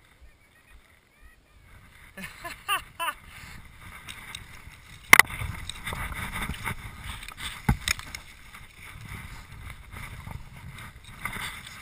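Skis hissing through deep powder snow, starting about two seconds in, with two sharp knocks about five and eight seconds in.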